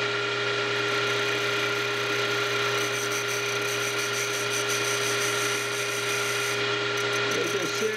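Small wood lathe running with a steady motor whine while a hand-held parting tool cuts into the spinning wooden wheel hub to part it off.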